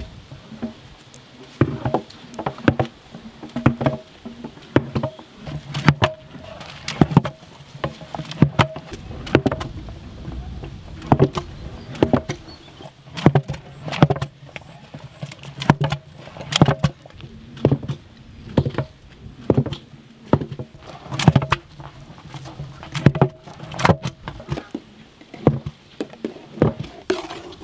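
A utensil stirring and working thick haleem in a large cooking pot, knocking against the pot roughly once a second.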